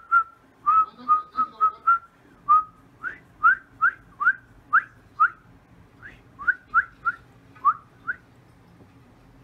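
A person whistling through the lips: a few short level notes, then a run of quick upward-sliding notes about two a second, stopping a little after eight seconds in.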